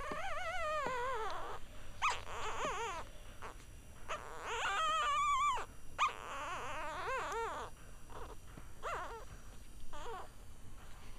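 One-week-old Cavalier King Charles Spaniel puppies crying: about six high-pitched, wavering squeals with short gaps, the last two brief.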